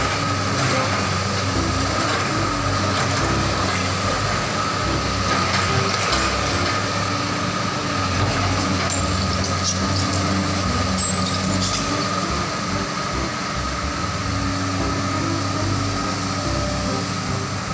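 Komatsu PC200 hydraulic excavator's diesel engine running under load as it digs and swings, a steady hum with a constant high whine on top, and a few clatters of the bucket and soil.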